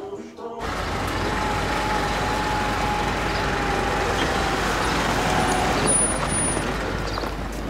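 Steady motor-vehicle running noise, a low even rumble, cutting in abruptly about half a second in.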